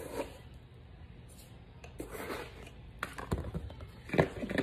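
A spoon scooping instant coffee granules from a jar and tipping them into a glass container: soft rustles, then several light clicks and taps in the last second and a half.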